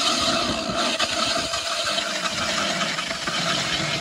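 DeWalt cordless drill spinning an ice auger down through snow and slushy, rotten ice: a steady motor whine over the grinding and scraping of the auger bit cutting.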